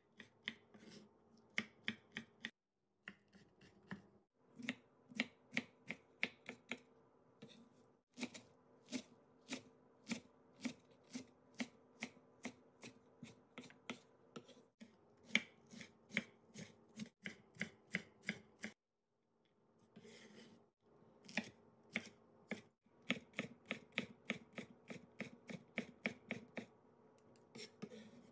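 Chef's knife chopping vegetables on a wooden cutting board: quick, even knocks about three or four a second, stopping briefly a few times.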